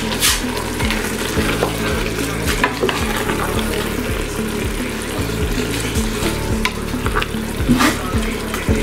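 Wooden spoon stirring chopped rape greens and smoked fish in a hot stainless steel pot, over a steady sizzle, with a few louder scrapes of the spoon against the pot, one near the end.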